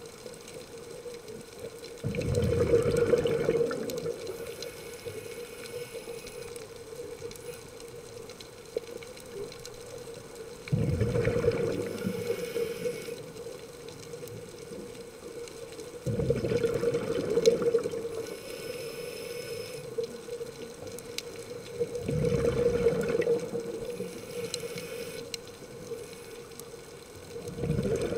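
Scuba diver breathing through a regulator underwater, exhaled bubbles rushing out in five bursts of about two seconds, one every five to six seconds, with a quieter steady hiss between breaths.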